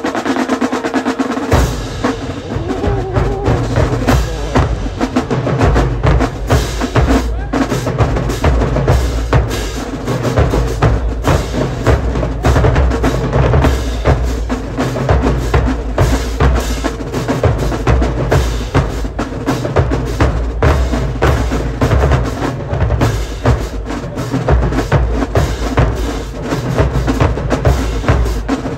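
Marching drumline playing a cadence on snare drums and bass drums. The bass drums come in about a second and a half in.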